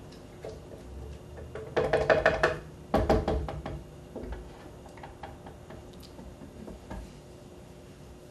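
Spatula stirring the thick dressing in a plastic blender jar, knocking and scraping against the jar's walls to free tahini stuck to the sides. There are two bursts of rapid knocks about two and three seconds in, and lighter taps after them.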